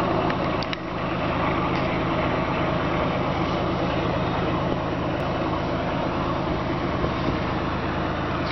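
Steady low engine drone with constant noise over it, holding the same level throughout.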